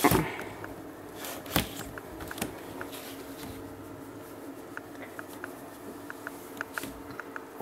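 A hand rubbing and stroking a long-haired Maine Coon cat as it shifts about in an empty bathtub: soft fur-rustling handling noise with scattered light ticks, and a single sharp knock about a second and a half in.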